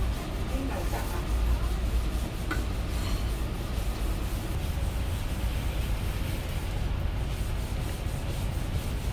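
Cleaver blade scraping and knocking on a thick wooden chopping block as marinated goose is cut, over a steady low rumble.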